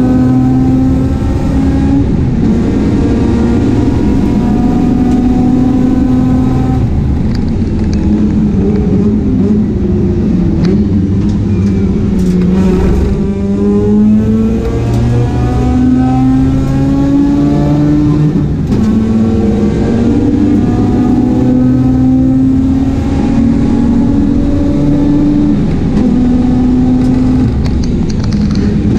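Mazda RX-8 race car engine pulling hard under acceleration, its pitch climbing through each gear and dropping back at every upshift. About halfway through it falls away briefly, as for braking into a corner, then climbs again.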